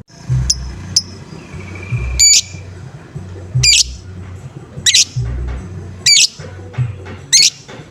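Lovebird giving its harsh 'ngoek-ngoek' call: two short chirps, then five loud, harsh squawks about every second and a half. Background music with a steady beat plays underneath.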